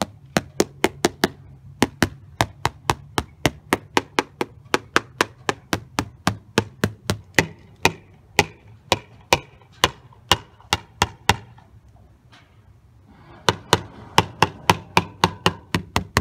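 The butt of a screwdriver's plastic handle tapping repeatedly on an RV's fiberglass sidewall, about three to four sharp taps a second, pausing briefly near the end and then starting again. The tapping sounds out the wall to find where the fiberglass siding has come loose from the plywood behind it.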